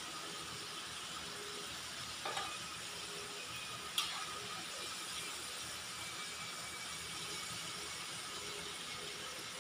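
Food frying in oil in a large stainless steel pan, a steady sizzling hiss, as a spatula stirs it; the spatula knocks sharply against the pan twice, a little after two seconds in and again at about four seconds.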